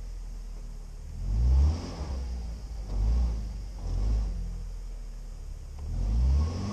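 UAZ Patriot SUV's engine revving in four rising surges as the stuck vehicle tries to drive out of deep muddy ruts, wheels spinning in the mud.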